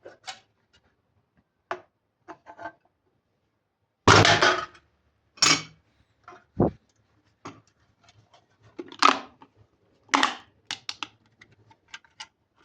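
A series of knocks, clatters and scrapes from objects being handled. The loudest comes about four seconds in, a low thump follows a couple of seconds later, and near the end there is a quick run of small clicks.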